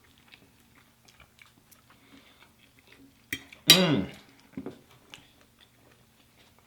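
Close-up eating sounds: quiet chewing and mouth smacks with small clicks of cutlery. There is one louder short sound about three and a half seconds in.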